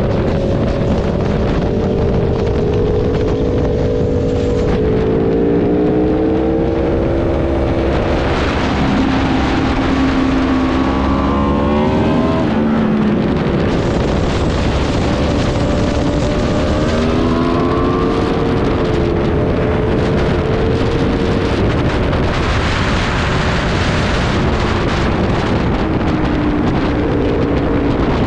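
Superbike engine running hard at high revs, its pitch climbing and then dropping several times as the rider works the throttle and gears, over a steady rush of wind on the microphone.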